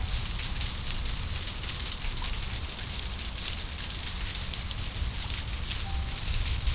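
Rain falling in a storm: a steady hiss of drops with many small taps, over a low, unsteady rumble.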